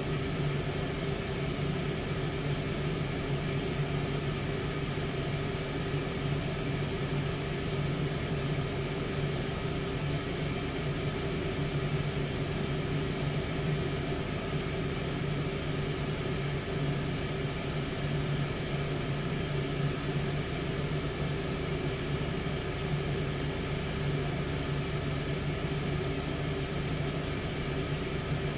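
Tower air fryer running mid-cook: its convection fan gives a steady hum, a strong low tone with a fainter higher tone above it over an even rush of air.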